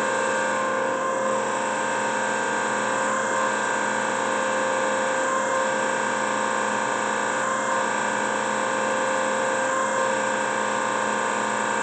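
TOS BPH20 surface grinder running under power, its grinding-wheel spindle motor and hydraulic unit making a steady hum with several fixed tones. A faint change in the sound repeats about every two seconds.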